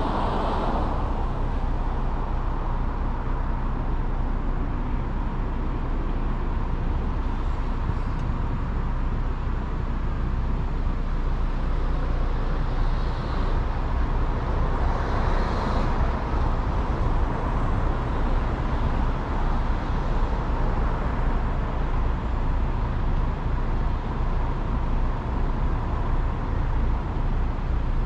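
Car driving along a road: steady tyre and engine noise with traffic around, swelling briefly a couple of times around the middle.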